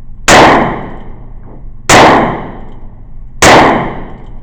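Inexpensive firearm fired three times, about a second and a half apart; each shot is very loud and trails off over about a second.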